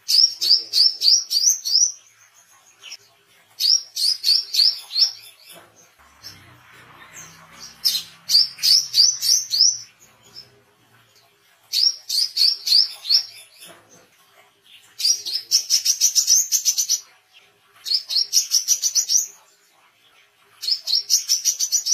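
Male brown-throated sunbird singing: seven rapid bursts of high, sharp, upward-flicked notes, each burst lasting a second or two, with short pauses between them.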